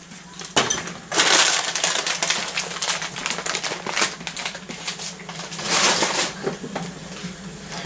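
Crinkling and crunching of a plastic bag of pistachios being handled, with the nuts rattling inside, in three irregular bursts of clicky noise: a short one about half a second in, a longer one around the first two seconds, and another about six seconds in. A faint steady low hum runs underneath.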